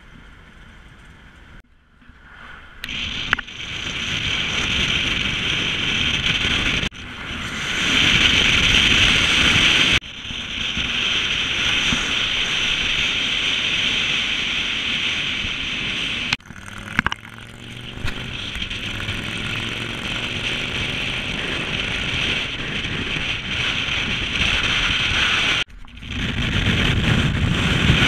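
A 1965 Ford Mustang driving at speed: wind rushing over the microphone with road and engine noise underneath. The sound changes abruptly several times where clips are cut together, and the engine pitch rises and falls partway through.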